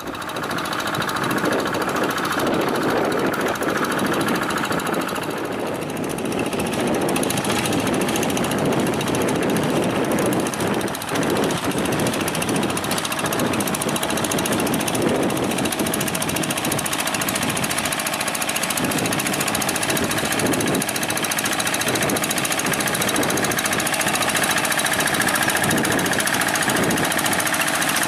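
Single-cylinder diesel engine of a walk-behind hand tractor running steadily under load while tilling a flooded rice paddy, a fast, even knocking beat.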